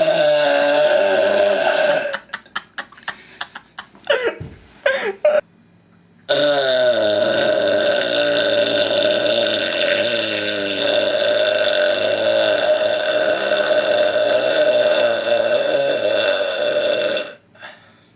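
A man belching: one loud burp of about two seconds, then a quick run of short clicks and gulps, then a single long, steady burp lasting about eleven seconds.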